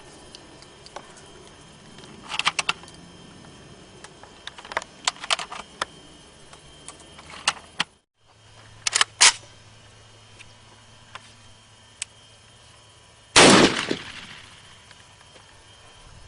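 Metallic clicks and clacks of a Saiga 12 semi-auto 12-gauge shotgun being handled and readied, then one loud shotgun shot near the end, with a ringing tail. The gun is running with the adjustable gas plug set too open, under-gassing the action so that the spent shell stovepipes.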